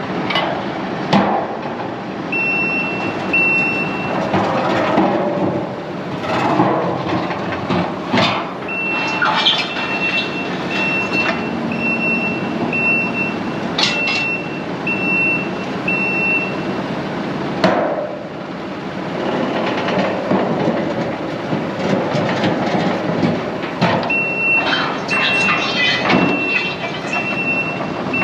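Reverse alarm on a working farm vehicle beeping about once a second, in three runs that start and stop as it backs up. Its engine runs underneath, with a few sharp metallic knocks.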